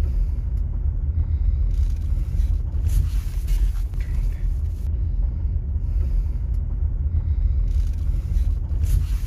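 Strong dust-storm wind buffeting the microphone: a loud low rumble that surges and eases in gusts, with a rushing hiss of wind coming in twice, about two seconds in and again near the end.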